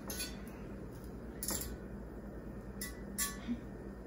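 A metal fork clinking against a ridged grill pan as butter is pushed around to coat it: four short, sharp clinks.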